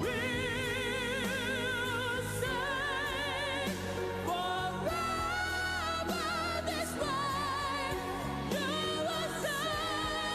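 A song: a solo voice singing held notes with wide vibrato over a steady instrumental backing.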